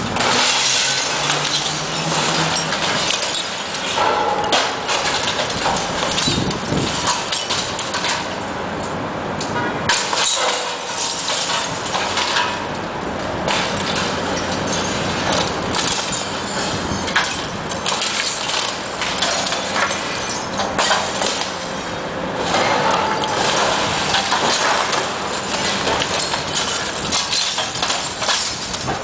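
Demolition din: a John Deere 450 crawler working against a brick wall, with repeated clattering crashes of falling bricks and rubble.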